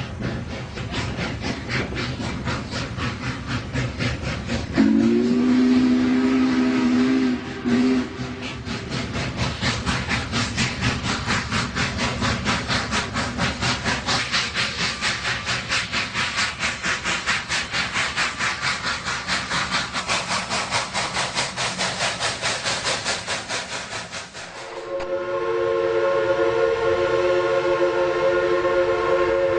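Steam locomotive chuffing in a rapid, even rhythm, with a brief low whistle tone about five seconds in. Near the end the chuffing stops abruptly and a loud, steady, chord-toned whistle sounds.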